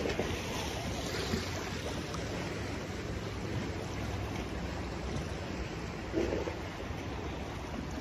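Black Sea surf washing steadily, an even rush of waves with no distinct strokes.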